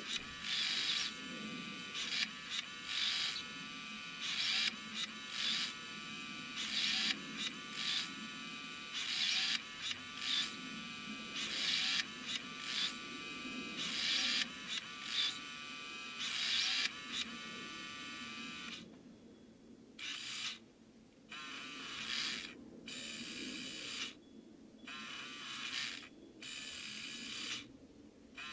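Drive mechanism of a carved wooden rope-skipping automaton running: a small motor and gears whirring with a high whine, pulsing in a regular rhythm as the rope turns. About two-thirds of the way through, the high whine starts cutting in and out.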